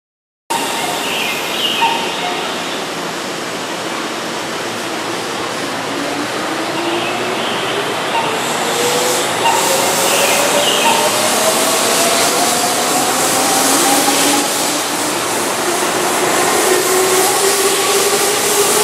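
Keihan Railway seven-car electric train pulling out of the station and accelerating past, with running noise of wheels on rail. Several steadily rising whines from the traction motors come in about five seconds in.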